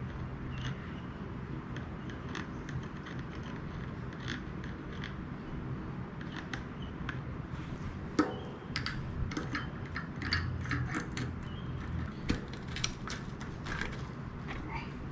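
Small irregular metal clicks and taps from Chris King rear hub parts being handled while the hub is lubed. They are sparse at first and come thicker and louder from about eight seconds in.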